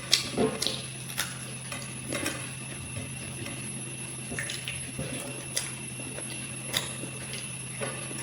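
A person eating up close: chewing and mouth sounds with scattered sharp clicks and taps, the loudest in the first second, over a steady low hum.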